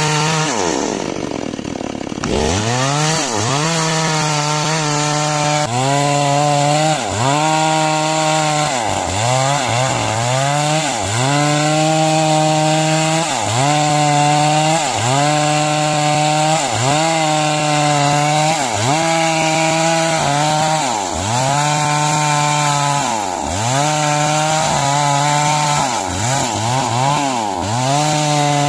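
Two-stroke chainsaw ripping through timber at high revs. The engine pitch sags and recovers over and over, about once every one to two seconds, as the chain bites into the wood and bogs under load, with one deeper drop and climb back about a second in.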